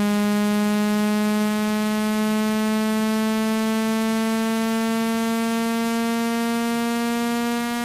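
A low, buzzy electronic tone of the kind used as a speaker-cleaning sound to vibrate water and dust out of a phone speaker, gliding slowly upward in pitch.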